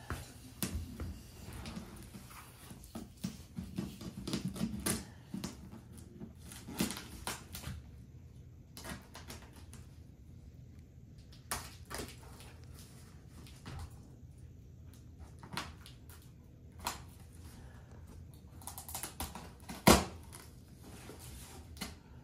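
Cardboard box being opened by hand: packing tape slit and the flaps scraped and pulled, with scattered clicks and knocks and a short rustle followed by one sharp knock about twenty seconds in.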